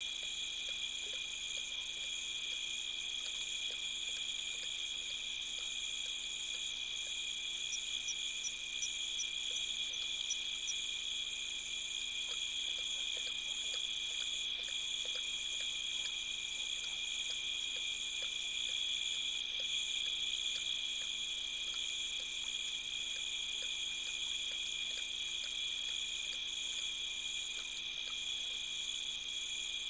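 Steady night chorus of insects, several high continuous trills layered together without a break.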